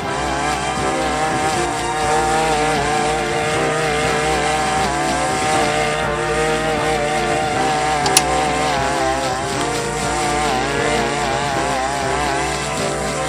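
Brush cutter engine running under load while a shredder blade cuts through grass and weedy stems; the engine pitch rises and dips as the blade bites. A single sharp tick about eight seconds in, the blade striking something hard.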